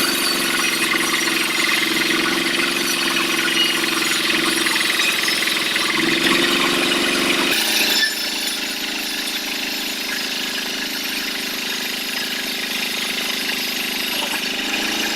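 Sawmill band saw running steadily while sawing a teak log, with a hiss over a low hum. About eight seconds in the sound changes and gets slightly quieter.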